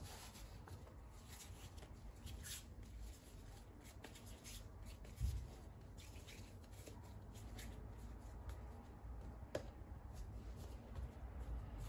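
Faint rustling and light tapping of hands at work, irregular, with a soft thump about five seconds in and a sharp click near the ten-second mark.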